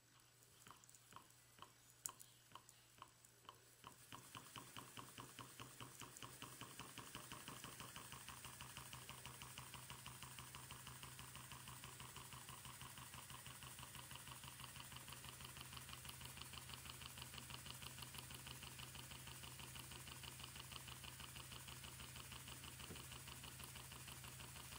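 Twin-cylinder steam engine running faintly, its beats starting slow and uneven at about three a second. About four seconds in they pick up speed into a fast, steady rhythm.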